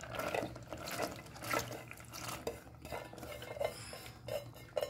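Soaked chana dal tipped from a steel bowl into a steel pressure cooker: irregular metal scrapes and clinks of the bowl and spoon as the dal slides out.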